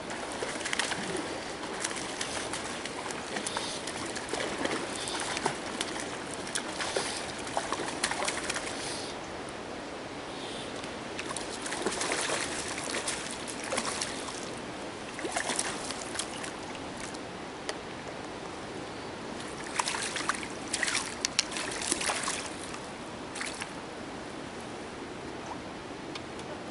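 A hooked trout thrashing and splashing at the water's surface in irregular bursts while being played on a fly rod, over a steady background hiss; the splashing dies down near the end as the fish is netted.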